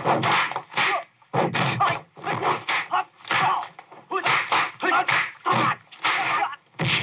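Kung fu film fight sound effects: a quick run of punch and block whooshes and thwacks, about two a second, over a faint steady hum.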